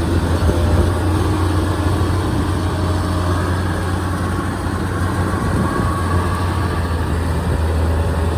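Kubota DC-93 combine harvester's diesel engine running steadily under heavy load, a constant deep hum with mechanical clatter, as the machine works through soft, boggy paddy mud.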